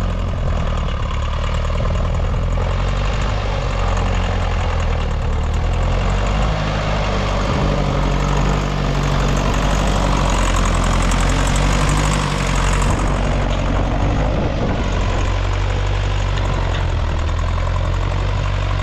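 Classic Massey Ferguson tractor engine running steadily.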